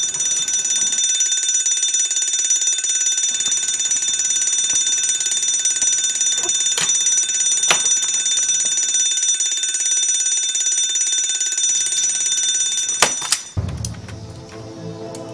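Electronic alarm bell from a Transformers Rescue Bots Griffin Rock Firehouse toy ringing continuously at a high pitch, with a few light plastic clicks as figures are handled. The ringing stops suddenly near the end and a lower electronic tune begins.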